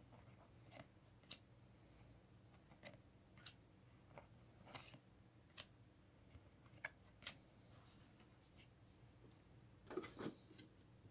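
Faint handling of paper trading cards: scattered soft clicks and slides of card stock as cards are flipped off a stack and laid on a pile, with a louder cluster of clicks about ten seconds in.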